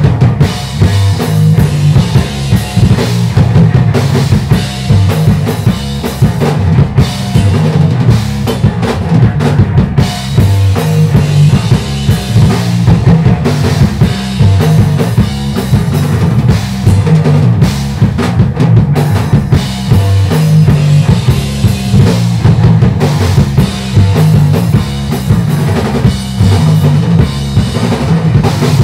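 Math rock band playing loud and live: a busy drum kit with electric guitar.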